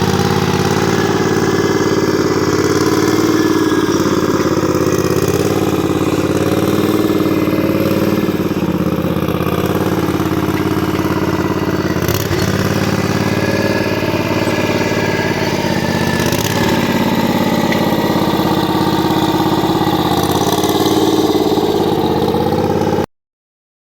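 Speedex 840 garden tractor engine running steadily at an even speed. The sound cuts off suddenly near the end.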